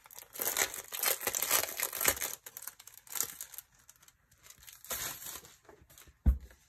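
Sticker sheets of paper and clear plastic crinkling and rustling as they are handled, in two stretches, with a thump near the end.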